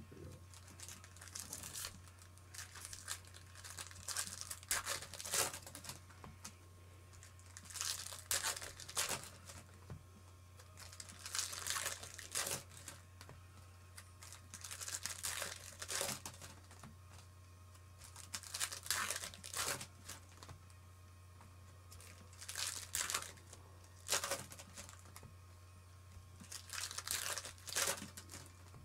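Baseball card pack wrappers being torn open and crinkled by hand, in bursts every few seconds, with cards rustling as they are handled. A steady low hum runs underneath.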